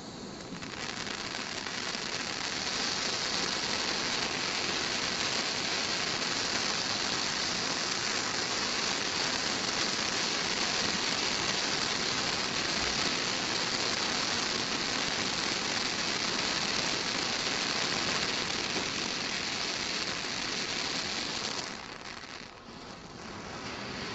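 Krazy Klock garden-fountain firework spraying jets of silver sparks: a steady hiss that swells up over the first couple of seconds and dies down about two seconds before the end.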